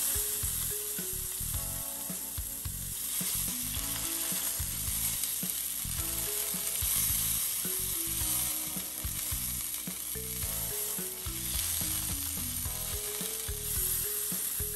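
Beef (a London broil) sizzling in hot oil and butter in a cast-iron skillet as its edges are seared, a steady frying hiss.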